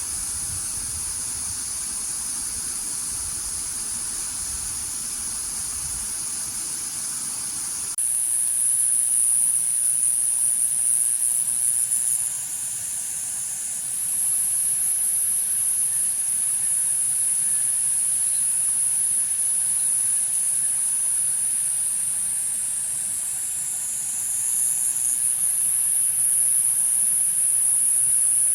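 A chorus of cicadas singing, a steady high-pitched drone. The sound changes abruptly about eight seconds in and gets louder, and other cicadas briefly join lower in pitch twice. There is a low rumble in the first few seconds.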